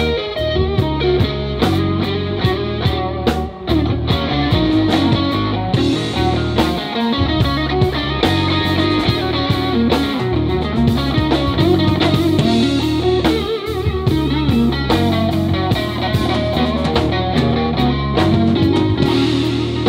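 Live blues-rock band playing an instrumental passage: electric guitar over bass guitar and a drum kit, with no singing.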